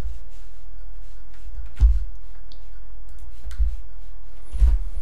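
Steady low hum with a few scattered clicks and low knocks, the strongest a little under two seconds in and a double knock near the end.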